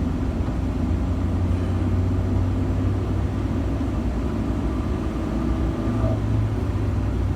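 Steady low rumble of a car's engine and running gear heard from inside the cabin.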